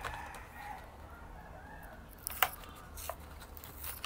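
Hot Wheels blister-card package being torn open by hand: the cardboard backing rips and the plastic blister crackles, with a few sharp cracks, the loudest about two and a half seconds in.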